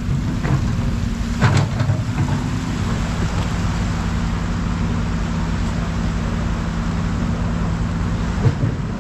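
Steady rushing of water with a low engine hum running underneath, and a brief sharper sound about one and a half seconds in.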